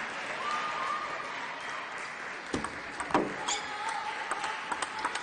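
Table tennis rally: the celluloid ball clicking sharply off the rubber-faced paddles and bouncing on the table, several hits about half a second apart starting a couple of seconds in, over the hum of a sports hall.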